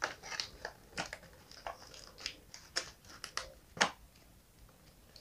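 Faint scattered clicks, taps and light rustles of fingers handling a cardboard toy display box and working a small plastic figure free of it, with one sharper click about four seconds in.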